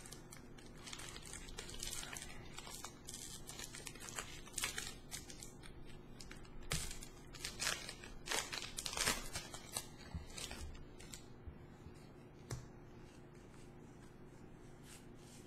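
Foil Pokémon trading-card booster pack wrapper crinkling and being torn open by hand, an irregular run of rustles and crackles, busiest in the middle, then quietening as the cards are handled near the end.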